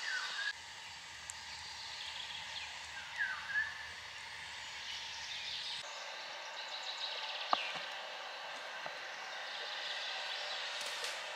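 A bird calls twice with short chirps. Then flour and oiled dough are stirred and worked with a wooden stick in a wooden trough, a soft, grainy scraping with one sharp tick partway through.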